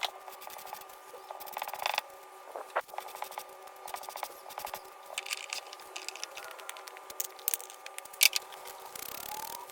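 Light scratching and scraping with scattered small clicks as a small wooden box and its lid are worked by hand, in keeping with hand-sanding the corners of a sticking sliding lid.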